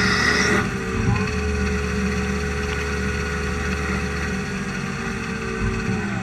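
Samsung SL 25 BMC CNC lathe running with a steady mid-pitched whine. A high-pitched whine cuts off about half a second in, a low hum drops out around four seconds in, and the whine sags slightly in pitch near the end.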